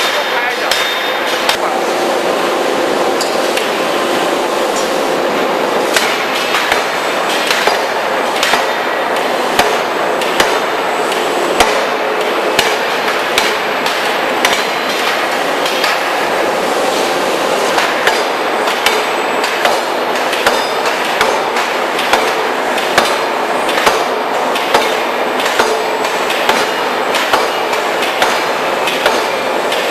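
Industrial forging hammer working: sharp, loud metal blows about once a second over a steady din of machinery noise.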